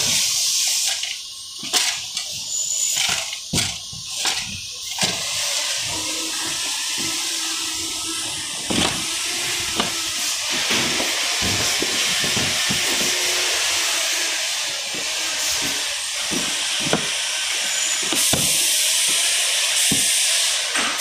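Plastic bag rustling and cardboard box handling, with a scatter of short knocks and scrapes as a circular saw is bagged and packed, over a steady hiss.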